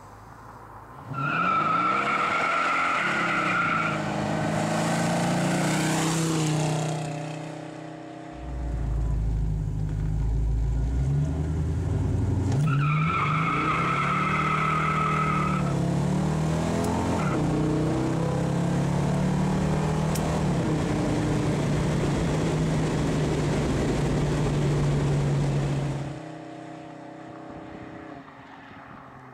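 Buick 455 V8 with dual exhaust accelerating hard under an automatic transmission, its pitch climbing and dropping back as it shifts up through the gears. The tires squeal twice, for about three seconds each time, under the hard launches, and the car settles into a steady cruise until the sound falls away near the end.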